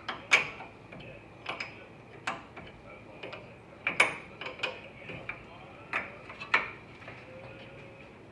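Sharp clicks and knocks of hand tools at work on a truck's front wheel hub, about a dozen at irregular intervals.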